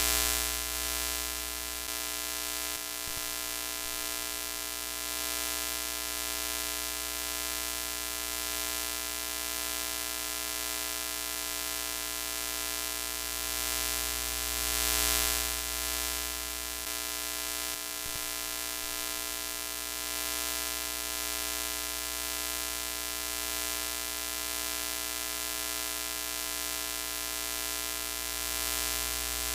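Broken-TV sound effect: a steady hiss of static with an electric buzz droning under it, swelling briefly about halfway through and again near the end.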